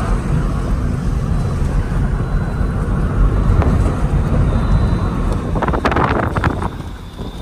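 Moving taxi heard from inside the cabin: a steady low road-and-engine rumble with wind noise, a brief cluster of knocks or rattles about six seconds in, then the rumble eases off near the end.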